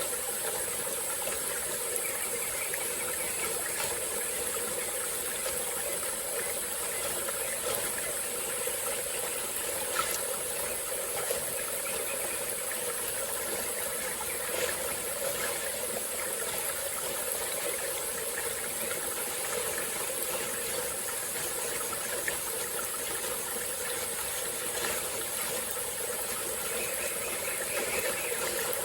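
A small forest stream flowing steadily, with a few faint brief ticks of splashing water.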